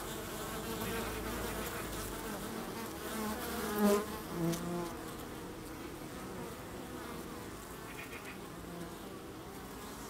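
Honeybees buzzing at the entrance of a wooden hive: a steady hum of many bees, with a couple of single bees buzzing louder about four seconds in.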